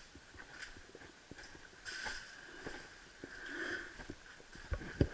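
Footsteps on a debris-covered floor, with scattered clicks and crunches underfoot and a few heavier knocks near the end.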